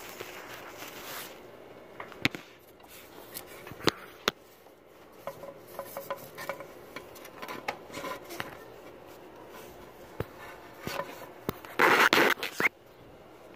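Hands working a loose seven-rib engine drive belt out behind a plastic radiator fan: light rubbing and scraping with scattered small clicks and knocks of rubber and plastic. Near the end there is a loud scraping rustle lasting about a second.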